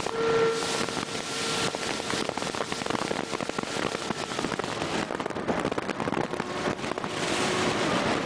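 Motorboat underway: a dense crackling patter of water against the hull and wind on the microphone. Underneath is the faint steady hum of the 175 hp Mercury Black Max outboard.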